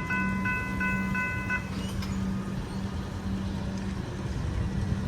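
Level crossing warning bell ringing in quick even strokes, about three a second, then falling silent about one and a half seconds in as the crossing's activation ends, over a low rumble of rail and road traffic.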